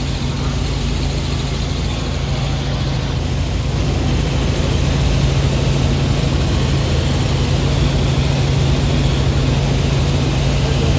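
Helicopter in flight: a steady engine and rotor drone with a strong low hum, growing a little louder about four seconds in.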